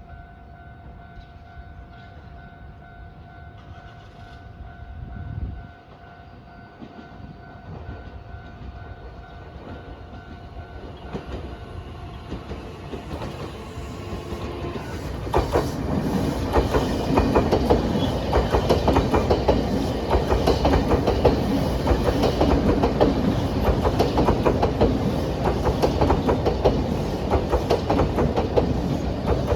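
A Nankai Line electric train rolls up and passes: the rumble builds from about halfway and the wheels clack rhythmically over the rail joints as the cars go by. Before that, a level crossing alarm sounds as a steady two-pitch tone that fades out about a third of the way in.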